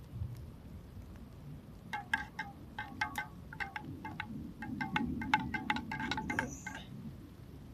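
A metal spoon stirring a hot drink in a stainless steel camping mug. From about two seconds in until near the end, it clinks against the sides again and again with a bell-like ring.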